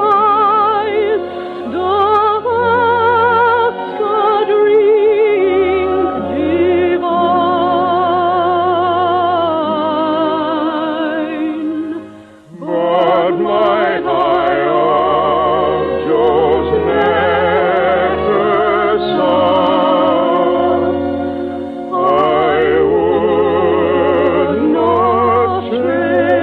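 Operatic-style singing with orchestral accompaniment: long held notes with strong vibrato, on a narrow-band old radio recording. The music breaks off briefly about halfway through, then resumes.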